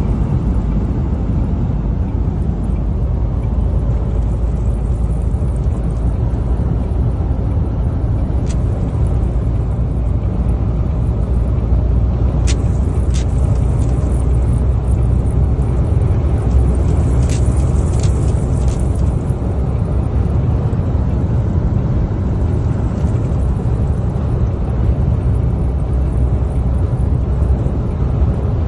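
Steady low rumble of road and wind noise inside a truck cab driving on a highway through a sandstorm. A few sharp ticks come near the middle.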